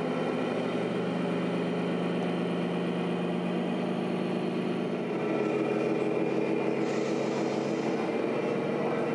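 Engine sound from a scale RC truck's sound module, running steadily. Its note changes about five seconds in.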